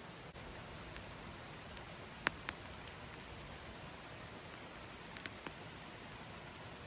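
Wood campfire burning under a grill of roasting chicken: a steady hiss with a few sharp crackling pops, two about two seconds in and two more past five seconds.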